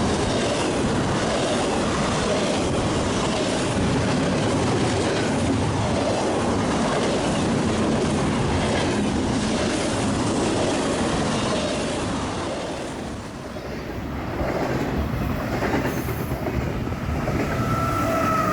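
Freight train rolling past, a steady rumble and clatter of wheels on rails. The sound dips about thirteen seconds in, builds again, and a steady tone rises near the end.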